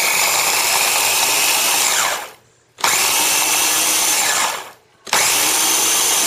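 Ninja electric food chopper's motor running in three pulses of about two seconds each, with short breaks between, grinding toasted bread into breadcrumbs.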